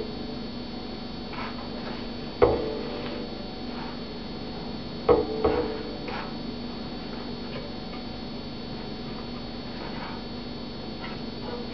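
Sharp clicks and knocks of hands handling the metal bracket hardware on a banjo's rim, three louder ones about two and a half, five and five and a half seconds in, each ringing on briefly through the banjo. A steady low hum runs underneath.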